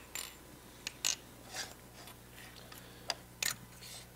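A handful of scattered light clicks and crackles, about seven spread over a few seconds, from small plastic communion cups being handled and set down after drinking.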